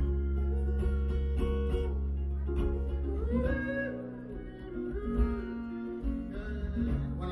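Live acoustic guitar music: a strummed acoustic guitar with a melody line that slides up and down in pitch above a steady low bass.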